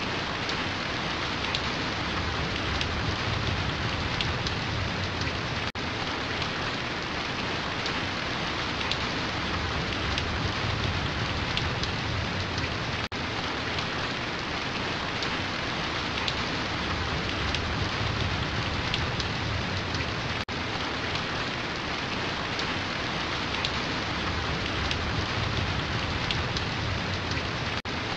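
Steady, heavy rainfall hissing and pattering on surfaces, with a brief dropout about every seven seconds.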